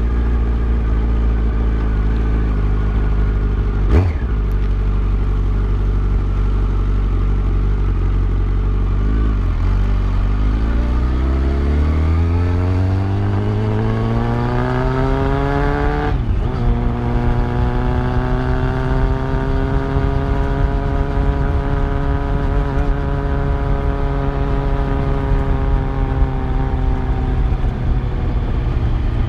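Yamaha FZ1's inline-four engine running low and steady, then pulling away with a steadily rising engine note. It breaks briefly about halfway through and then holds a steady higher note while cruising.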